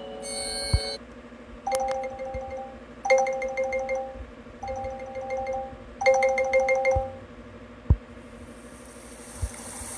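Electronic alarm tone: a two-note electronic chime that sounds four times, about every one and a half seconds, after a brief cluster of steady tones in the first second.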